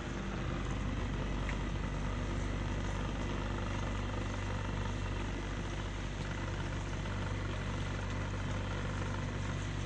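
Motorboat engine running steadily, a constant low hum.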